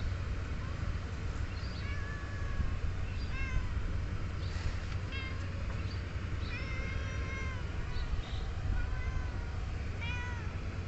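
Young cats meowing over and over, short high-pitched meows every second or so, with one longer drawn-out meow about seven seconds in. A steady low rumble lies underneath.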